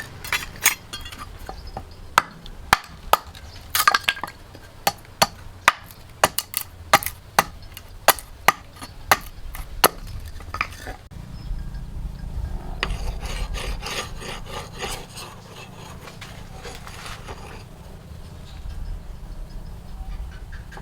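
Hand work on wood: a quick, irregular run of about twenty sharp knocks, then from about halfway a rubbing, scraping sound over a low steady hum.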